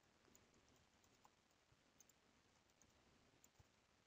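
Very faint computer-keyboard typing: a few soft, irregularly spaced key clicks over near silence.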